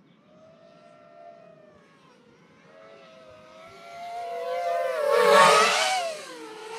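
7-inch long-range FPV quadcopter flying in toward the pilot: a propeller whine whose pitch keeps shifting, growing louder over several seconds. It is loudest about five seconds in, then eases off.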